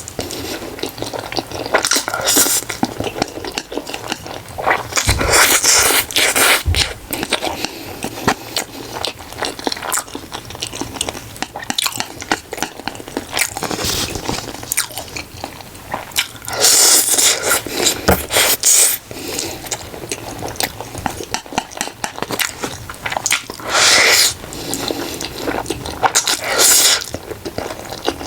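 A person chewing and biting food, wet mouth clicks with bursts of crunching several times.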